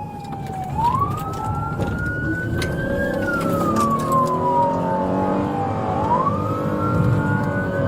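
Police car siren on its wail setting, its pitch slowly falling, rising, falling and rising again about every three seconds, over the steady rumble of the pursuing car's engine and road noise.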